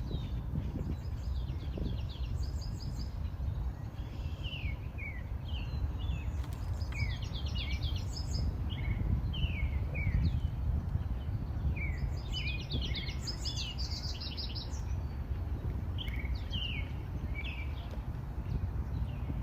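Songbirds chirping: many short, quick downward-sweeping chirps, coming in busy flurries, over a steady low rumble.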